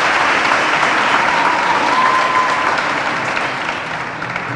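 Audience applauding, slowly dying down toward the end, with a thin steady tone held for about a second partway through.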